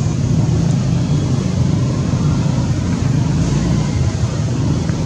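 A steady low drone like an engine running, with no breaks or changes.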